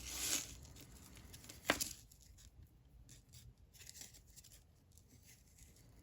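Hands handling costume jewelry and its packaging: a brief rustle, one sharp click a little under two seconds in, then faint small ticks and taps.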